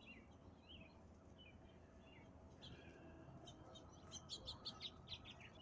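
Faint bird chirps over a quiet evening background: a few scattered short calls, then a quicker run of high chirps in the second half.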